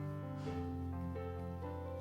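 Soft background music with held piano or keyboard notes changing slowly.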